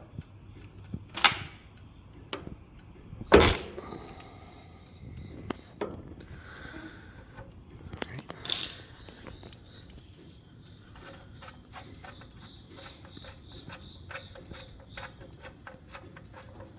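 Metal hand tools clanking and knocking against the engine, three sharp knocks with the loudest about three seconds in, then a long run of fast light clicks in the second half.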